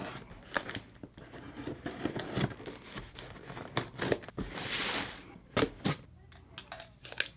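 Knife blade slicing through the packing tape on a cardboard shipping box, with scraping and crinkling of the cardboard, and one longer tearing hiss near the middle as a strip of tape is cut. A couple of sharp clicks follow shortly after.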